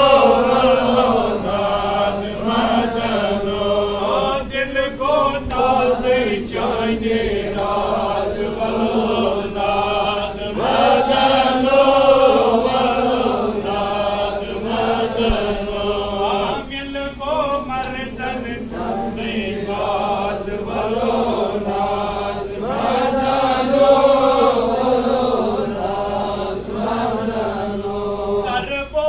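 A man chanting a Sufi devotional poem (kalam) in long, wavering melodic phrases with short breaks between them.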